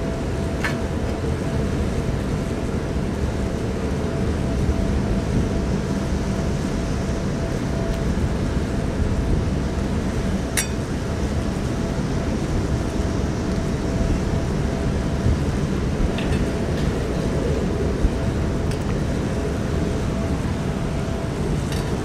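Strong typhoon wind rumbling over the microphone, with a faint steady hum underneath. A few sharp clicks stand out, one about ten seconds in and a couple more later, from stray cats eating out of stainless-steel dishes.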